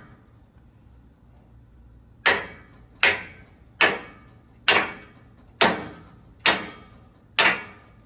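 Hammer blows driving the pin into a scissor lift's hydraulic cylinder mount: seven sharp strikes a little under a second apart, starting about two seconds in.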